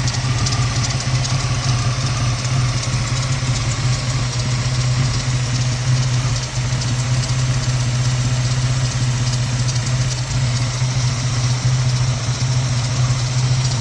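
2002 Ford Mustang's 3.8-litre V6 idling rough and uneven, a steady low engine note with a faint hiss over it. The owner thinks he hears a vacuum leak, still there after a new PCV valve and breather hose.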